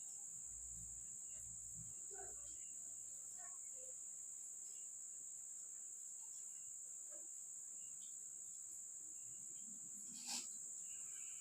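Insects trilling steadily in one high, unbroken band, with a single sharp click about ten seconds in.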